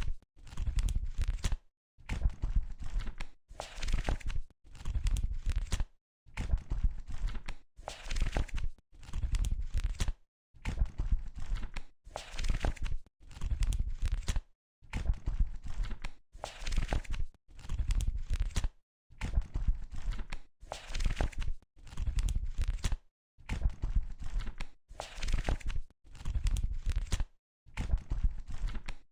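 Book pages being turned one after another, a papery rustle with a low thump roughly every one and a half seconds, separated by brief dead silences.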